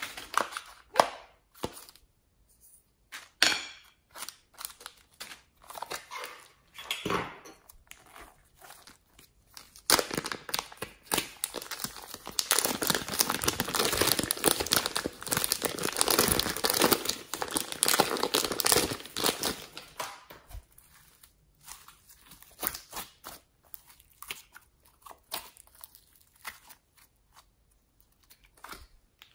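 A clear plastic zip bag crinkling as fingers squeeze slime out of it, a dense, loud run of crinkling through the middle. Scattered light clicks and rustles of small plastic pieces being handled before and after it.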